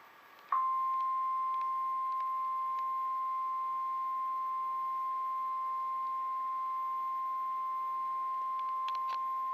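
Emergency Alert System warning alarm: a single steady tone near 1050 Hz, the NOAA Weather Radio alert tone, switching on about half a second in and holding unbroken. It announces that a severe thunderstorm warning message follows.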